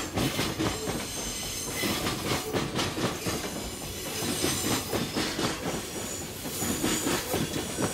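Freight train's container wagons rolling past, wheels clattering rhythmically over the rails, with a faint high wheel squeal.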